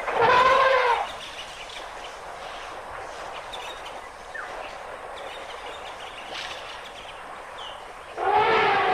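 Elephant trumpeting: one loud call about a second long at the start, and another beginning near the end, with quieter background noise in between.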